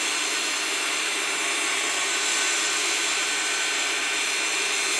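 Table saw running steadily as it cuts a board: a steady whine over a loud hiss.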